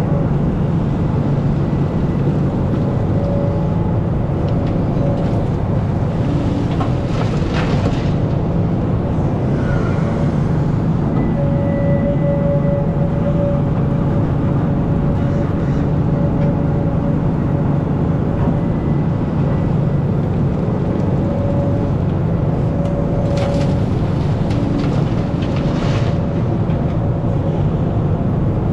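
Hidromek hydraulic excavator working: its diesel engine runs under load with a steady drone, and a higher hydraulic whine comes and goes as the boom and bucket move. There are two short rushes of noise, about a quarter of the way in and again near the end.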